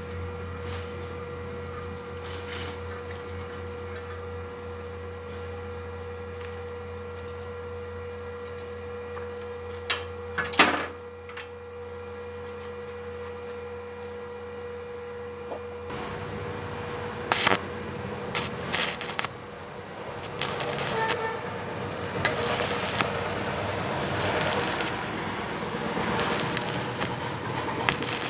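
Steady low electrical hum with a single sharp tap about a third of the way in. Just past halfway a few scratching strikes start a stick-welding arc on steel, which then crackles and spits steadily through the last third.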